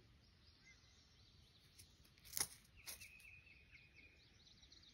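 Near silence with faint bird chirping and two sharp clicks, a little over two seconds in and about half a second apart.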